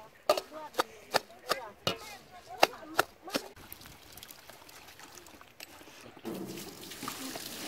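Long-handled iron blade chopping green chillies in a steel bowl: sharp metallic strikes about two and a half a second, stopping about three and a half seconds in. Near the end, water poured from aluminium pitchers splashes into a large steel cooking tray.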